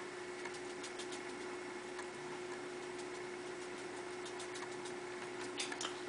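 Faint scratching and light ticks of colouring on sketchbook paper, over a steady background hum, with a few slightly louder clicks near the end.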